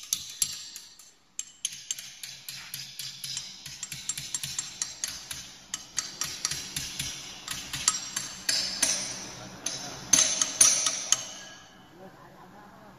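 Hand hammer striking a punch against the steel tube sheet of a turbine oil cooler during tube replacement: a steady run of sharp metallic taps, about three a second, ringing louder for a second or so near the end before the hammering stops.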